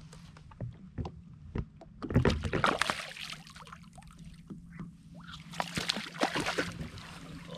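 A snapper splashing and thrashing at the surface as it is reeled up beside the boat, in two bursts, about two seconds in and again near the end, after a few sharp knocks of the rod and reel.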